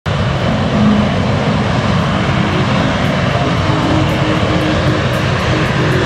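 Aircraft engine noise: a loud, steady rushing sound with a faint hum of held tones underneath.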